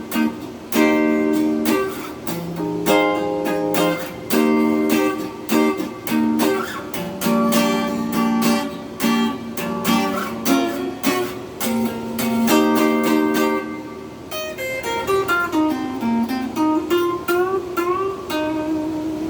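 Les Paul-style electric guitar played clean through an amp with reverb, both pickups on together and wired out of phase, giving a hollow, quacky tone. Picked chords and single notes, with sliding, bent notes near the end.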